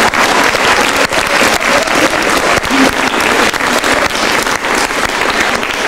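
Theatre audience applauding, many hands clapping at once, easing off slightly near the end.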